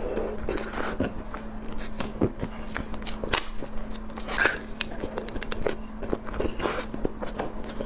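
Close-up eating sounds: irregular clicks, crackles and wet mouth noises of chewing, over a steady low hum.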